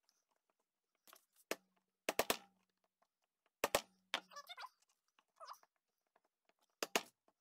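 Claw hammer striking a concave rivet-setting tool to set a double-cap rivet against a metal plate: sharp metallic taps, one, then three quick ones, then two, each with a short low ringing hum. Two light clicks near the end.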